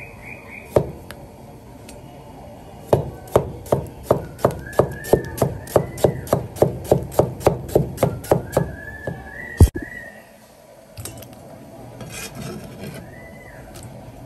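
Knife chopping on a wooden cutting board: a single chop, then a steady run of about twenty quick chops, roughly three a second, and one hard final chop.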